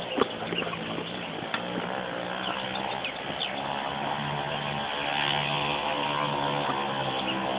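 An engine running steadily, its pitch shifting slightly and growing a little louder about halfway through. Short high chirps, like birds, sound faintly over it.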